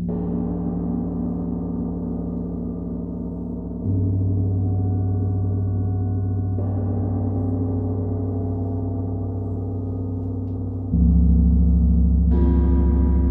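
Gong played with a mallet, a long humming drone of many overlapping low tones. Fresh strokes swell it about four seconds in and again near the end, and twice a brighter shimmer of higher overtones blooms in.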